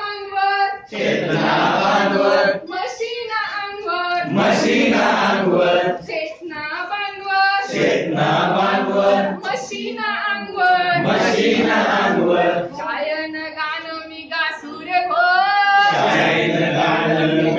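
A group of adults singing a Marathi action song in call and response: one voice sings a line and the group echoes it, trading back and forth every couple of seconds.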